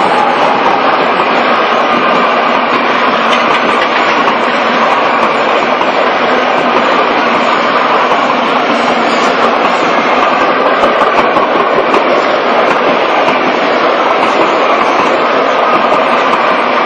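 Train running on the rails: a steady, loud rush of noise with wheels clattering over the track.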